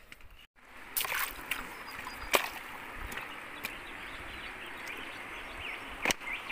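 Steady rush of running water from a creek, with a few sharp clicks or knocks scattered through it.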